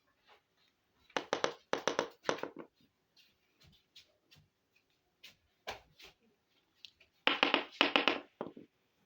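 Hands handling small plastic toy kitchen pieces: two flurries of clicks and rustles, about a second in and again near the end, with scattered light taps between.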